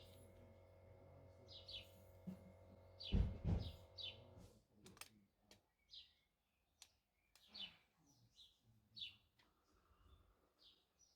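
Bird chirping, short high calls repeated every second or so. Two thumps come about three seconds in, and a faint steady hum stops shortly after.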